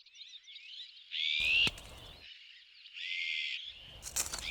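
Chorus of many small birds chirping and singing, with two louder drawn-out calls, one about a second in and one about three seconds in. A low rumble comes in under the calls twice.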